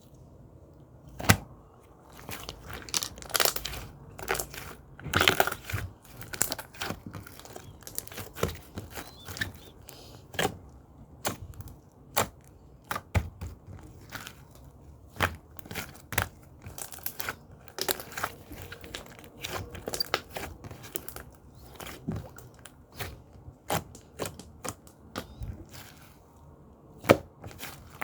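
Slime being mixed and squished by hand, giving irregular sharp clicks and pops, about one or two a second.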